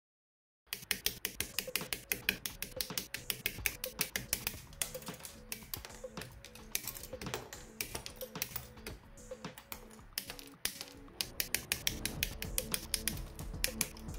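Background music with a fast, dense clicking percussion beat over held tones, starting about a second in after a moment of silence.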